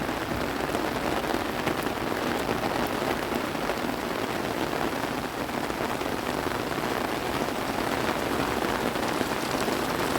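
Steady rain falling: an even, unbroken hiss of rain on the ground and surfaces, with faint patters of individual drops.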